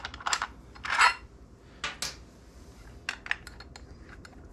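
Small steel screws clinking and scraping as the Torx screws of a motorcycle air filter are backed out and handled by hand. A few sharp metallic clinks, the loudest about a second in, then lighter ticks near the end.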